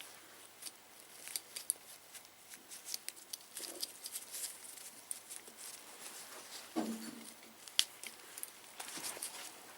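Scattered small clicks, ticks and rustles of hands working parts and tools on a motorcycle handlebar, with a louder knock about seven seconds in and a sharp click just after it.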